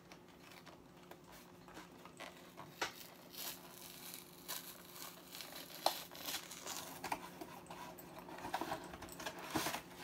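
Cardboard collector box being handled and opened: irregular rustling and scraping of the packaging with scattered small clicks and taps, busier in the second half.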